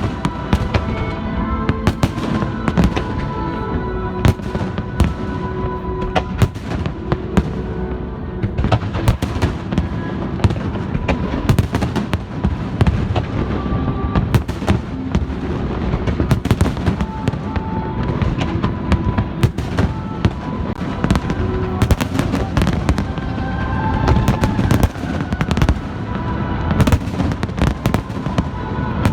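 Fireworks display: shells bursting in rapid, continuous bangs and crackles, with music playing along underneath.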